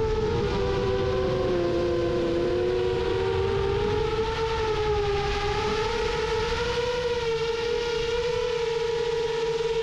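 Rajawali Fold 7 FPV quadcopter's motors and propellers whining steadily at cruise, several close pitches wavering slowly up and down as the throttle shifts, over low wind rumble.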